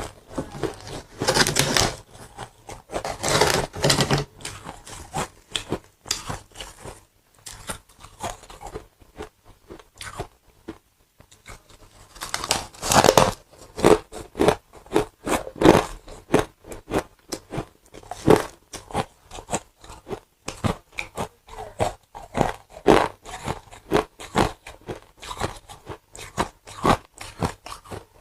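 Ice and frost being bitten and chewed close up: long crackling bites about a second in and again near the middle, followed by a run of short, quick chewing crunches.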